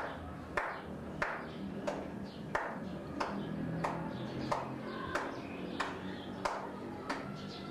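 A sharp ringing strike repeated at an even pace, about one and a half times a second, over a faint low steady hum.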